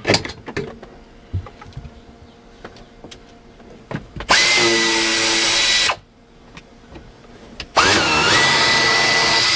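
Handheld power drill/driver running in two bursts of about one and a half and two seconds, a steady high whine over a dense buzzing rattle, with the second burst dipping in pitch as it starts. Light knocks and clicks of hand work on the dash come between the bursts.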